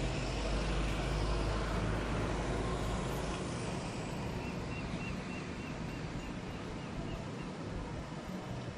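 Outdoor ambience of steady background noise, with a heavy low rumble from wind on the microphone that stops suddenly about three seconds in.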